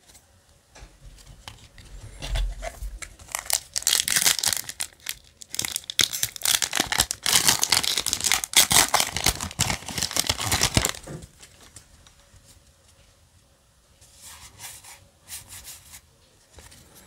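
Foil Yu-Gi-Oh! booster pack wrapper being torn open and crinkled in the hands, a dense crackling that builds up over several seconds and is loudest near the middle before it stops. Fainter rustling follows near the end as the cards are handled.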